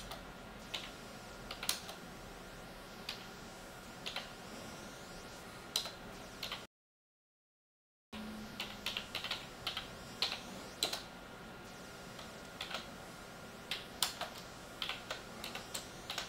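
Computer keyboard being typed on: irregular key clicks at an uneven pace. Midway the audio cuts out completely for about a second and a half.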